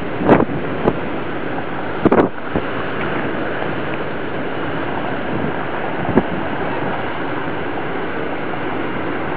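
Steady rush of surf breaking in the bay below, mixed with wind on the microphone, which buffets it in a few short gusts: near the start, about two seconds in, and again about six seconds in.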